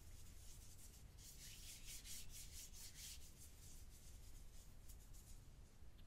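Fingers rubbing and raking through a tray of crushed gym chalk powder: soft, dry scratching strokes in a quick run about a second in that lasts about two seconds, then a few fainter strokes.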